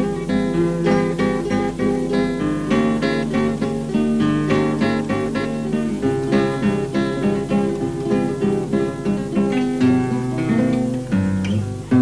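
Instrumental music: a plucked string instrument plays quick runs of short notes over a bass line that moves every couple of seconds, with no singing.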